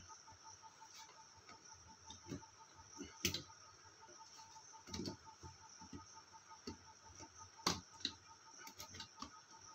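Separate sharp clicks and knocks of contact blocks and their holders being pressed and seated into a Bentex SK star-delta starter's contactors, the loudest about three seconds in and near the end. Under them runs a fast, steady, faint ticking.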